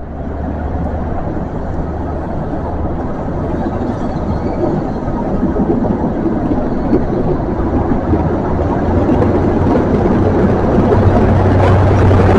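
A GWR 'Castle' High Speed Train moving past: its Mk3 coaches rolling by on the rails, with the low engine drone of the train's Class 43 power car. The sound grows steadily louder toward the end as the rear power car draws near.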